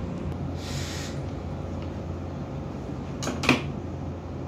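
Handling noises at a workbench: a brief scrape just under a second in as a plastic timer relay is moved, then one sharp click about three and a half seconds in as pliers and wire are picked up, over a steady low hum.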